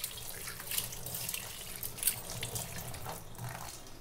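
Ragi-flour and spinach pakodi deep-frying in a kadai of hot oil: the oil sizzling steadily with frequent sharp crackles.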